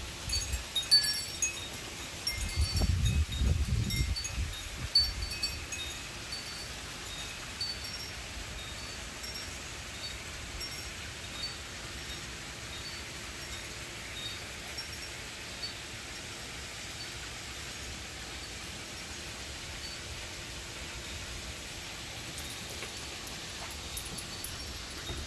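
Wind chimes tinkling on and off, more often in the first few seconds and sparser after, with a low rumble of wind on the microphone about three seconds in.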